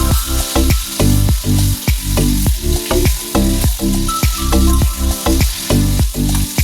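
Food sizzling as it fries in hot oil in a pan, with stirring, under background music with a steady beat.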